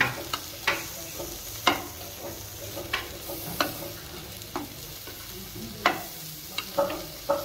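Onion, garlic and chilies frying in oil in a pan, with a soft sizzle. A utensil stirring them clinks and scrapes against the pan about eight times, at irregular intervals.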